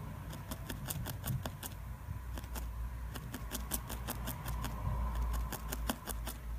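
Barbed felting needle stabbing rapidly into wool on a felt backing: quick, faint ticks, several a second, in an uneven rhythm.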